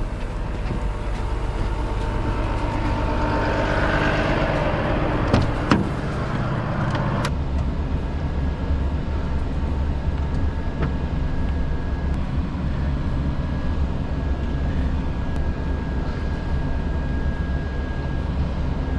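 Steady low drone of a Volvo FH16 timber truck driving, with engine and road rumble. A few sharp clicks come just before a sudden change in the sound about seven seconds in.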